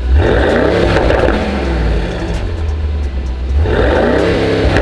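Mercedes-AMG GT 63 S 4-Door's twin-turbo 4.0-litre V8 free-revved twice at standstill, exhaust valves open in Sport Plus mode. Each blip climbs sharply in pitch and falls back to idle, the first right at the start and the second about three and a half seconds in.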